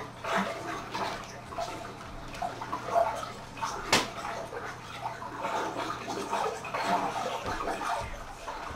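Experimental music score for the dance: an irregular, busy texture of small crackles and clatters that sounds watery, with one sharp knock about four seconds in.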